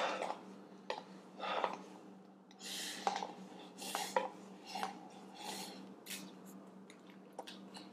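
Wooden chopsticks scraping and clicking against a paper instant-noodle cup held to the mouth, with a few short slurps as the last fire noodles are pushed in.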